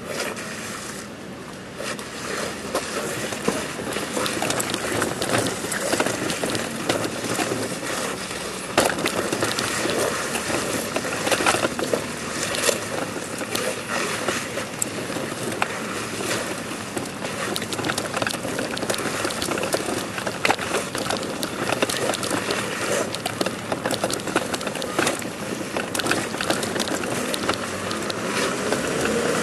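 Scraping and rustling of cloth and body dragging over stone paving as a man army-crawls forward on his belly, with many small irregular clicks and crackles.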